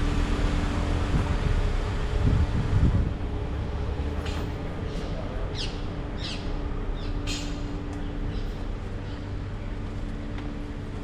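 City street ambience: a steady low rumble with a constant hum, louder over the first three seconds, and a run of about six short high squeaks or chirps in the middle.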